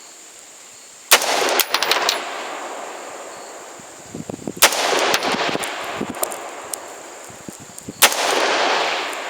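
Three AR-15 rifle shots about three and a half seconds apart, each a sharp crack followed by a rolling echo that fades over about a second.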